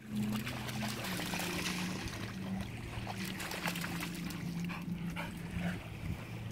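Dog splashing through shallow river water, with a steady low hum underneath until near the end.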